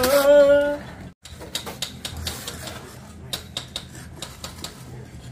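Bricklayers' steel trowels tapping and scraping on clay bricks and mortar: a run of sharp, irregular clicks and taps. A voice is heard briefly at the start.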